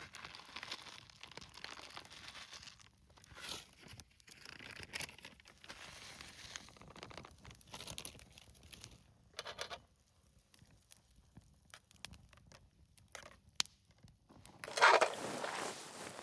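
Food packaging being handled and torn open: irregular rustling and crinkling with scattered clicks, and a louder burst of rustling near the end.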